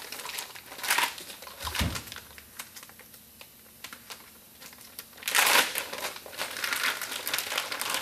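Plastic wrapping crinkling as a new hydraulic pump regulator is unwrapped from a green plastic bag by gloved hands. The rustling comes in bursts, with a soft low thump about two seconds in, a quieter stretch in the middle, and the loudest crinkle about five seconds in.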